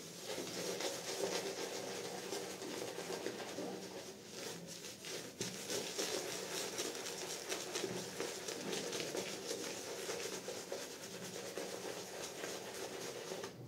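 Shaving brush working lather over a stubbled face and neck: a steady wet swishing of bristles through foam, with a fine crackle of bubbles.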